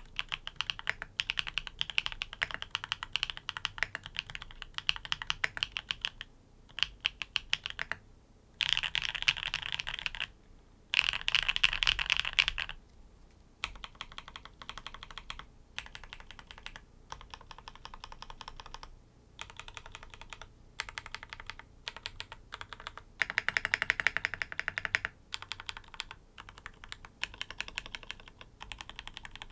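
NEO80 custom mechanical keyboard with tactile switches, built on an O-ring mount, being typed on in a sound test. The typing comes in runs of rapid keystrokes with brief pauses, and the fastest, loudest runs fall about a third of the way in and again near the end.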